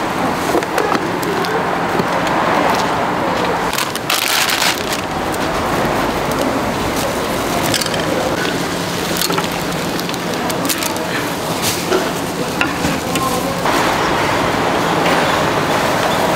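Busy market food-stall ambience: a steady din of background voices with scattered sharp knocks and clatter, a faint steady hum, and a hiss of about a second around four seconds in.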